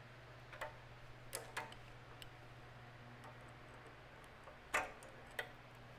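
Needle-nose pliers and a small engine's carburetor being handled: scattered light metal clicks and taps, the loudest a sharp knock about three-quarters of the way through.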